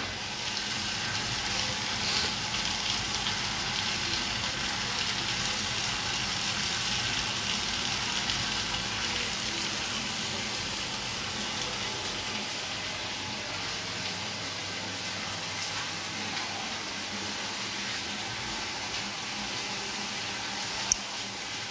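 Potatoes, red peppers, carrots and onions sizzling steadily in olive oil in a large stainless steel pot over high heat, with the vegetables' own water cooking out. A single small click near the end.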